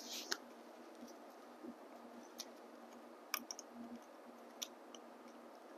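Faint, scattered clicks and light taps, about five in a few seconds, with a brief rustle at the start: gloved hands handling small parts and the encoder circuit board in an electric motor's open end cover.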